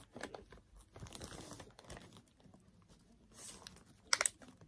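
Plastic packaging crinkling and light handling clicks as a paddle dryer's handle and brush attachment are unwrapped and handled, with a sharper crackle about four seconds in.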